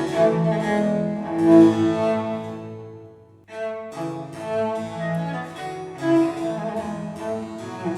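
Instrumental music recorded from a hi-fi system playing, led by cello and other bowed strings. It fades to a brief break about three and a half seconds in, then starts again.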